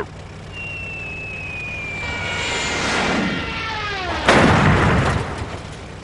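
Cartoon falling whistle, sliding slowly down in pitch and then dropping steeply, ending in a loud crash about four seconds in. A steady low truck-engine rumble runs underneath.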